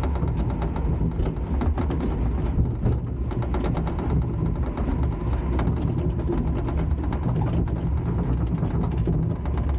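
Log flume ride machinery: a steady low mechanical rumble with rapid, irregular clacking.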